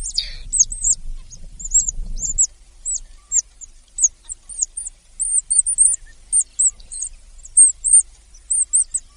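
A small bird chirping: a long run of short, very high chirps, a few each second in irregular groups.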